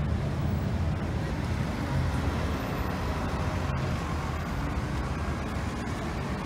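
Amtrak bilevel passenger cars rolling past in a steady low rumble, mixed with road traffic crossing the overpass above.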